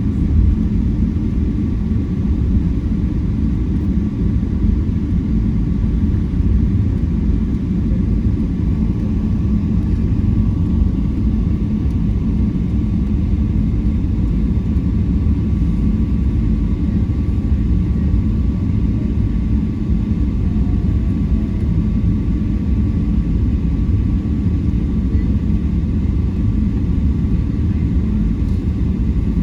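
Airplane noise: a steady, loud low rumble with a thin constant tone above it, unchanging throughout.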